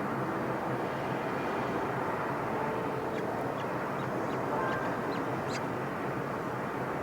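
Steady outdoor background rumble and hiss, with a few faint, short, high bird chirps about halfway through.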